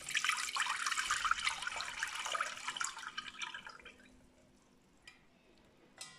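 Watery coconut milk carrying lumps of solid coconut fat pouring from a plastic jug through a mesh sieve into a stainless steel pot: a splashing pour that thins to a trickle and stops about four seconds in. A couple of light clicks near the end.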